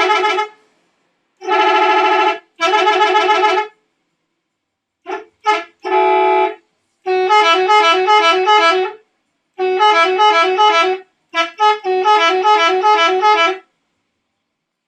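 Indonesian telolet bus air horn, a multi-tone musical horn, sounding a series of blasts. First come separate short toots, then longer runs of quickly alternating notes that play a little tune, stopping near the end.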